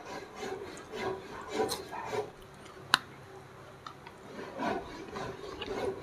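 Chewing and crunching on fried egret, gnawing the head and hard bones: soft scraping mouth noises and small clicks, with one sharp crack about three seconds in.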